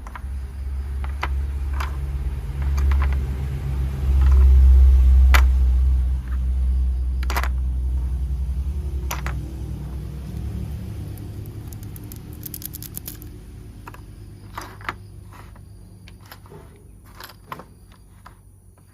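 Scattered clicks and knocks of plastic toy train parts being handled, with a quick rattle a little past the middle, over a heavy low rumble that swells about five seconds in and fades away after about ten.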